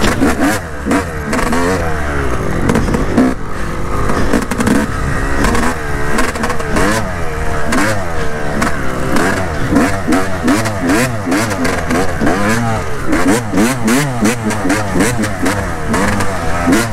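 Yamaha YZ250 two-stroke dirt bike engine revving up and down over and over as it is ridden in first gear through muddy ruts, with scattered knocks from the bike.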